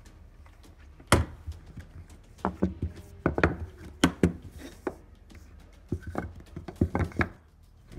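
Hard puzzle pieces being handled and set down on a board, knocking and clattering: one sharp knock about a second in, then scattered clusters of taps.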